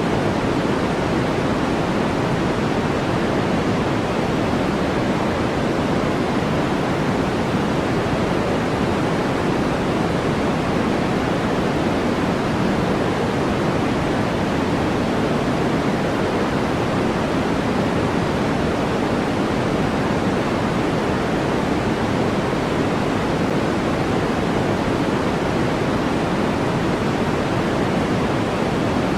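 Continuous electronically generated white noise: a steady, unchanging rush with no breaks or events, weighted toward the lower end so it sounds more like a soft roar than a thin hiss.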